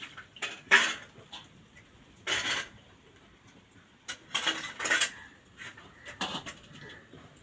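Four short bursts of clatter, unevenly spaced, the sharpest about a second in.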